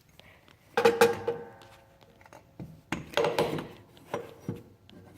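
Metal parts being handled: a sharp clank that rings briefly, followed by a click and a few more knocks.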